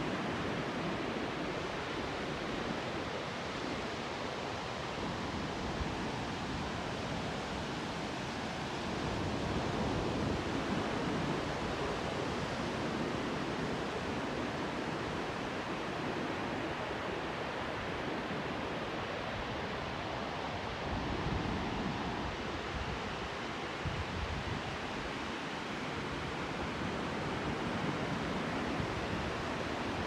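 Pacific Ocean surf breaking and washing up a wide sand beach: a steady rush of wave noise that swells and eases slowly every several seconds.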